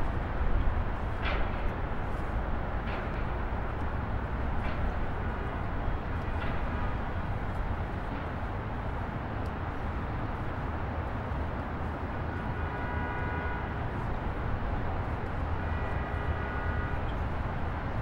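A car driving: steady engine and road rumble, with a few light clicks in the first half and two faint, brief pitched tones later on.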